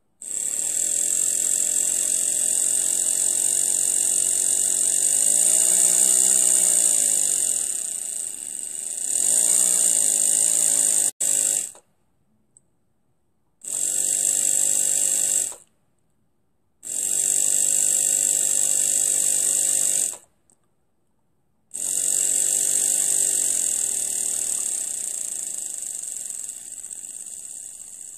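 Miniature three-cylinder brass steam engine running fast on low-pressure compressed air: a hiss of air over a quick buzzing hum of its exhaust beats, briefly rising in pitch twice. It stops and then starts up again on its own three times as the air comes back on, the sign of a self-starting engine, and fades out near the end.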